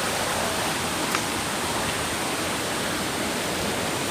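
Mountain valley stream running steadily, an even rush of flowing water, with one brief click about a second in.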